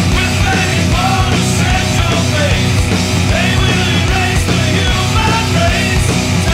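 Loud punk-style rock song with a driving drum beat, heavy guitars and a sung lead vocal.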